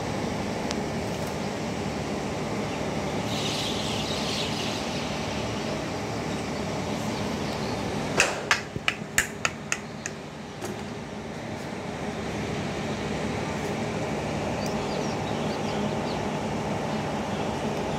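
A quick run of six or seven sharp taps, coming closer together, as the plastic cooling fan is fitted onto the rear shaft of a three-phase electric motor, over a steady workshop hum.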